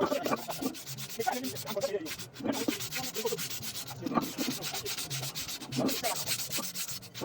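Rapid, repeated abrasive scraping strokes, like sanding or wire-brushing a metal brake part by hand, going on steadily.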